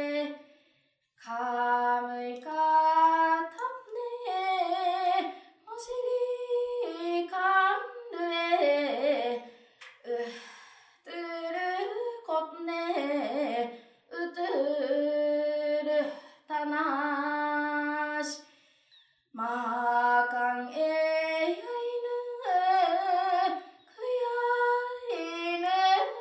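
A woman singing an Ainu yaysamanena lyric song alone and unaccompanied. She holds long notes that bend between pitches, phrase by phrase, with short pauses for breath.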